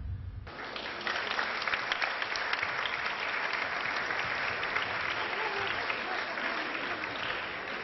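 Audience applauding: a dense patter of many hands clapping that starts about half a second in and eases slightly near the end.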